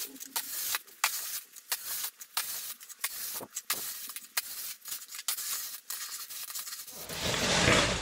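Snowcaster wheeled snow pusher's blade scraping and crunching over a thin layer of snow on a concrete driveway in irregular strokes as it is pushed along. Near the end a louder, closer rustling takes over.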